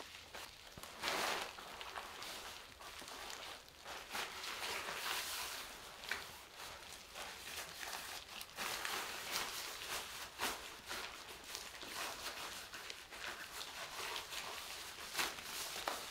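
Clothing rustling as a sweater is pulled on over the head, with scattered light knocks and shuffling steps on a wooden floor.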